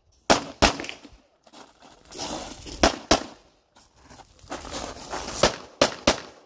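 9mm Glock 34 pistol shots fired mostly in quick pairs, about seven in all, with footsteps crunching on gravel between the strings of shots as the shooter moves between barricades.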